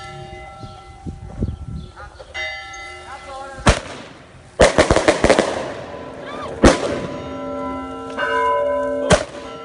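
Church bells ringing in several steady tones, broken by sharp firework bangs: one about three and a half seconds in, a quick cluster around five seconds, and single bangs near seven and nine seconds.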